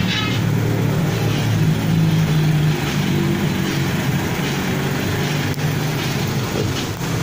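Bass-heavy music playing loudly through a newly installed VENOM car audio system. The low bass notes are the strongest part and change pitch every second or so.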